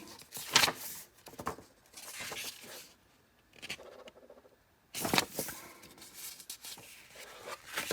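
Hands handling the hard plastic doorbell and its mounting bracket: scattered clicks, taps and scraping, with a sharp click about five seconds in and a quiet stretch just before it.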